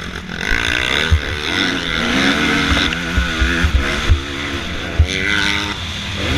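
Motocross dirt bike engine heard from the rider's own bike, revving up and falling back again and again as the rider works the throttle and gears around the track. Low thumps of wind buffeting the on-bike camera microphone run under it.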